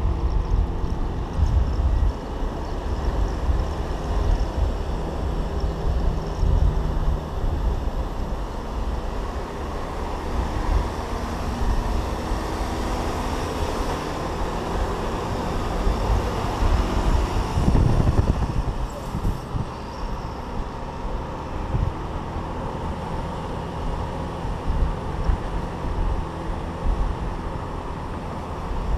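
SYM Citycom scooter riding at speed in traffic, its engine running steadily under rushing wind on the microphone, with a louder rush about eighteen seconds in.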